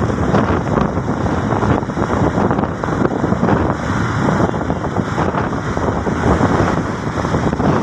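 Steady wind rushing and buffeting on the microphone of a vehicle moving at road speed, mixed with road noise.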